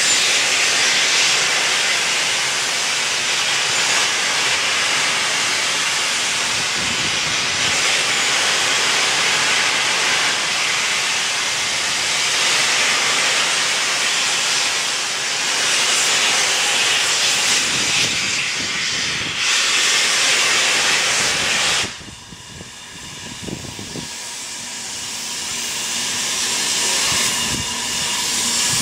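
BR Standard Class 4 steam locomotive 75029 hissing loudly as steam blasts from its open cylinder drain cocks. The hiss cuts off suddenly about three-quarters of the way through, then builds again near the end.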